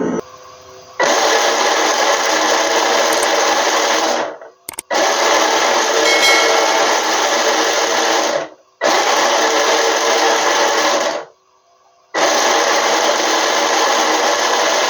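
A small high-speed motor runs in four bursts of about three seconds each, switched on and off sharply with short pauses between.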